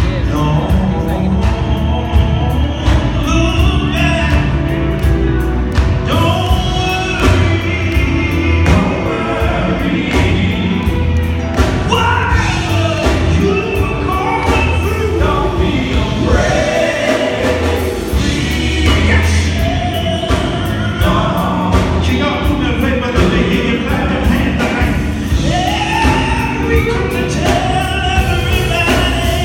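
Live gospel music: a male lead singer with backing vocal harmonies over a band of electric guitar, bass and drums, loud and amplified through PA speakers in a hall.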